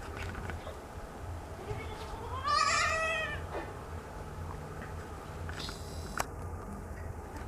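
A goat bleats once, about two and a half seconds in: a single wavering call lasting about a second. A brief click follows near the end.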